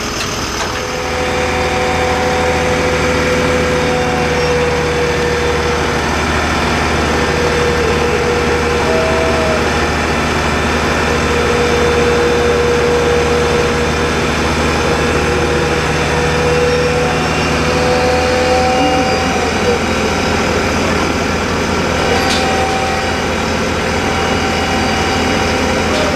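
Fire truck diesel engine running steadily, a low drone with a steady whine over it. The drone eases about two-thirds of the way through.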